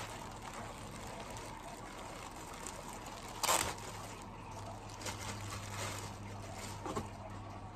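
Plastic packaging bag rustling and crinkling as it is handled and a mesh carp sling is pulled out of it, with one sharper crinkle about three and a half seconds in and lighter ones later. A faint steady low hum sits underneath.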